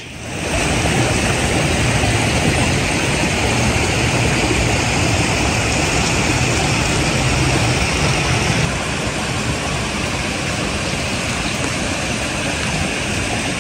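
A loud, steady rushing noise with a hiss in the upper-middle range over a low rumble; it drops a little about nine seconds in.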